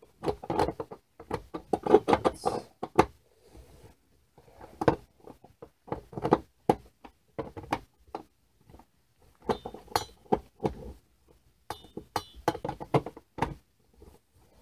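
Metal support poles of a life-size animatronic's frame being forced together: clusters of knocks, clinks and rattles with short pauses between. One pole will not seat properly, which the builder puts down to a dent.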